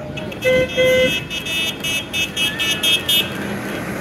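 Tractor horn tooting twice in quick succession, followed by a rapid string of high-pitched beeps, over the low rumble of the approaching tractor's engine.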